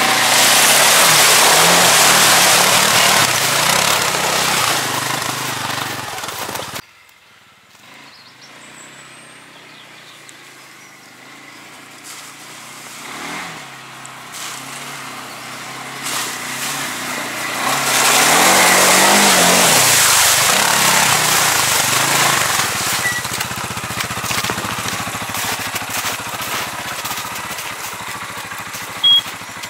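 Vehicle engine running and revving under a loud rushing noise. The noise cuts off abruptly about seven seconds in, then builds back up and is loud again from about eighteen seconds, with the engine pitch rising and falling.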